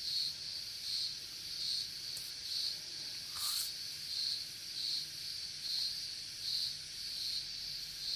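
Steady insect chirping, a high pulse about every three-quarters of a second, with a single sharp click about three and a half seconds in.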